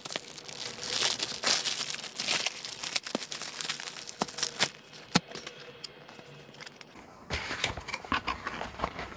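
Plastic postal bag crinkling and tearing as it is pulled open by hand, with a few sharp clicks around the middle. Near the end, rustling as the cardboard box inside is handled and its flap opened.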